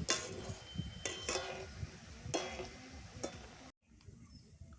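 Battered leaf pakoras frying in hot oil with a sizzle, while a spatula scrapes and knocks against the pan about four times. The sound cuts off suddenly about three-quarters of the way through, leaving a quieter background.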